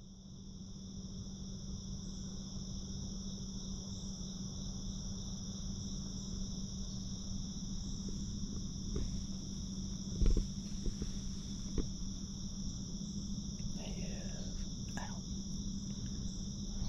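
Steady high-pitched chorus of crickets and other night insects in the woods at dusk, over a low steady hum, with a sharp thump a little past the middle and a few fainter knocks near the end.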